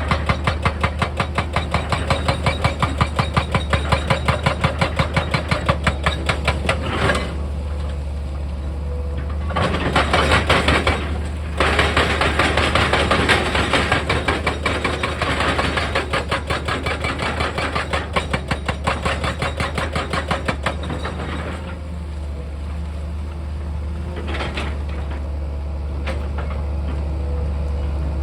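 Heavy machinery running with a steady low engine hum under a rapid, regular pounding of about five strokes a second that stops and starts several times.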